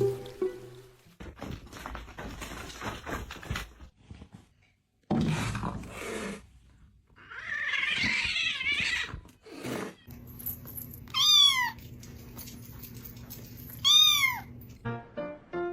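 A cat meowing twice, about three seconds apart: short, high calls that rise and fall in pitch, among scattered knocks and handling noises.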